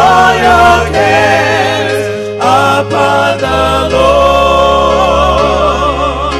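Gospel music: several voices singing with vibrato over sustained low bass notes.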